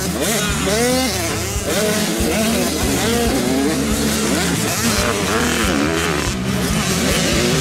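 Several motocross bikes racing, their engines revving up and dropping again and again as the riders accelerate out of corners and shift, several engines overlapping.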